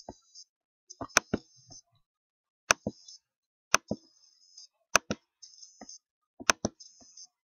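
Computer mouse clicks: sharp clicks in pairs or triplets, about five groups spaced roughly a second or more apart, with a faint high-pitched hiss between them.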